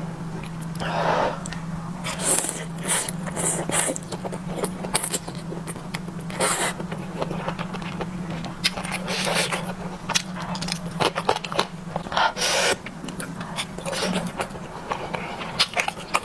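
Close-miked eating sounds: noodles in spicy broth slurped in several short hissing draws, between many wet chewing clicks and smacks.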